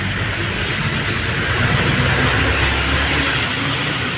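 Bus at speed: a steady engine hum under rushing road and wind noise, swelling a little about halfway through.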